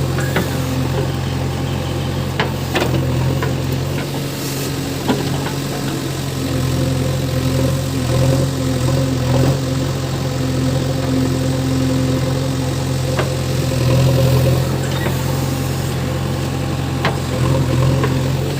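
JCB 3DX backhoe loader's diesel engine running steadily, with a few sharp knocks scattered through.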